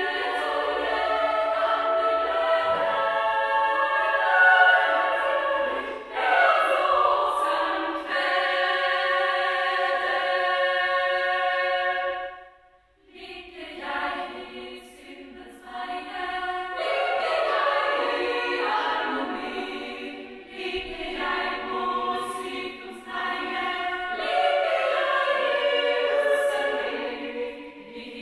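Women's choir singing, several voices holding sustained notes together. About halfway through they break off for about a second between phrases, then come back softer and build up again.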